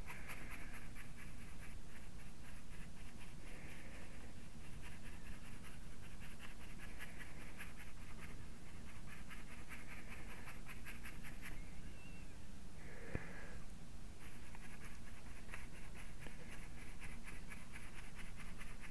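A foam dauber tapping and scrubbing acrylic paint onto hardboard in rapid light dabs.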